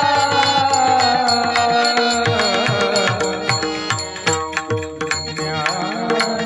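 Marathi devotional kirtan music: a held sung note slowly falling over a steady drone, then a drum keeping a steady beat of about three strokes a second from about two seconds in, with bright percussion ticks.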